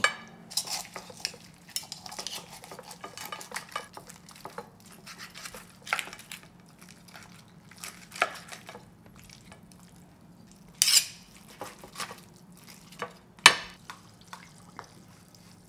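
A knife cutting up a roast chicken on a plate: crisp skin crackling, and the blade tapping and scraping against the plate in many small clicks. Near the end a sharper clink comes as water is poured from a bottle into a glass.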